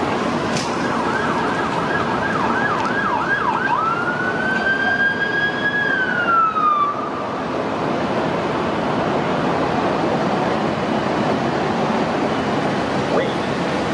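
Electronic emergency-vehicle siren: fast yelping sweeps for about three seconds, then one long wail that rises, holds and slides down before cutting out about halfway through. Steady street traffic noise runs underneath.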